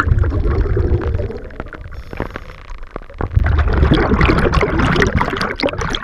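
Underwater bubbling and rushing water against a mask-mounted GoPro's housing, in two long surges of low rumble and crackle, as a diver rises through a cloud of bubbles toward the surface.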